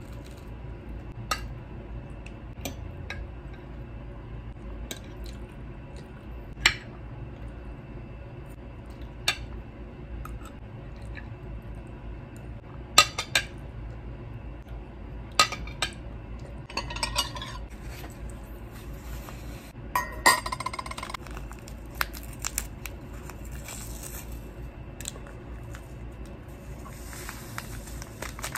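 Metal cutlery clinking and scraping on a ceramic breakfast plate and cup while eating: scattered sharp clinks, a few coming in quick clusters in the second half, over a steady low room hum.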